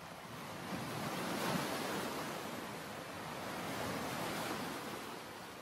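Ocean surf washing onto a sandy beach, a steady hiss that swells and eases twice.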